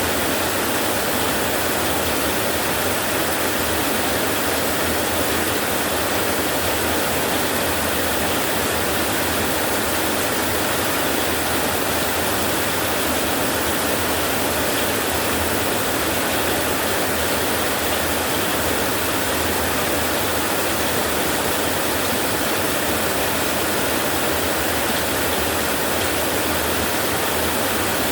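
Heavy rain falling on metal roofs, a steady even hiss with no thunder claps or changes.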